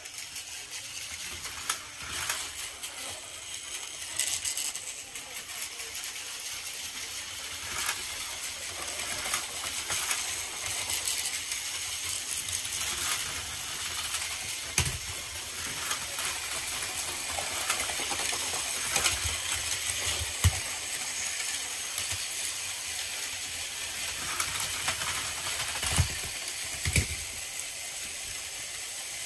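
Several battery-powered Plarail toy trains running together on plastic track: a steady high whirring and clattering from their small motors and wheels. A few louder knocks, about 15, 20 and 26 seconds in, come as trains collide and tip over.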